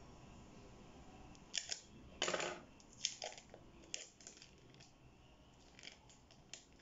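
Small scissors snipping the plastic Oreo biscuit packet around a frozen ice pop, then the wrapper being picked and peeled open. After about a second and a half of near quiet come a few sharp snips and crinkles, with one longer rustle.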